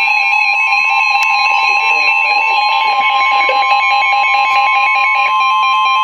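Several NOAA weather radios sounding their warning alarms at once for a severe thunderstorm warning: a steady alert tone under the receivers' own fast-pulsing alarm beeps, cutting off suddenly at the very end.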